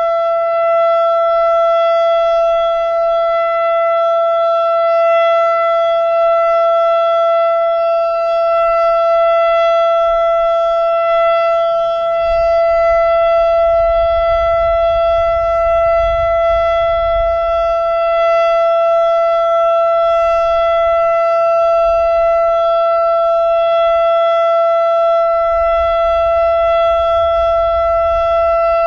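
ASC Quadren Q-3200 outdoor warning siren sounding its steady Alert signal on a monthly test: one loud, unbroken held pitch with strong overtones. A low rumble rises under it twice.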